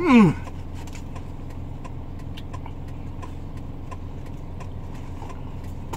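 Steady low hum of a car's engine idling, heard inside the cabin, with small scattered clicks. A short falling vocal sound comes right at the start.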